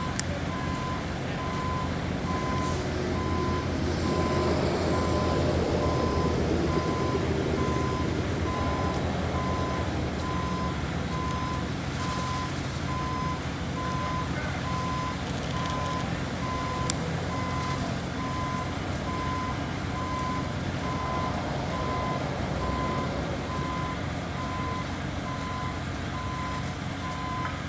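A heavy vehicle's reversing alarm beeping in an even, steady rhythm over the low hum of a running truck engine.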